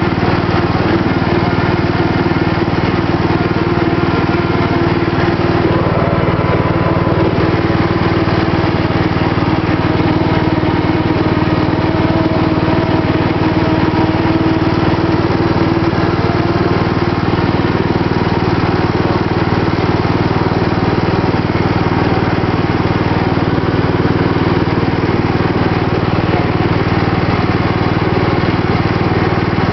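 Riding lawn mower engine running steadily at an even speed while the mower drives along, loud and close, with no change in pitch.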